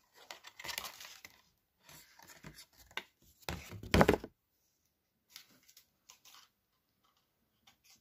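Handling noise as a white card and fishing tackle are moved about on a tabletop: three stretches of rustling and scraping, the loudest about four seconds in, then a few faint clicks.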